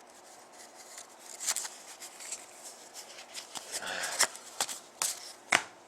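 Hockey trading cards being handled and slid one over another: soft rustling with a scatter of short clicks and taps, a few sharper ones in the latter half.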